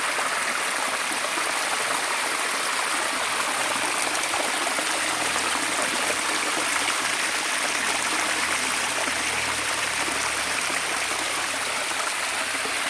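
Flowing water rushing and splashing steadily, like a stream.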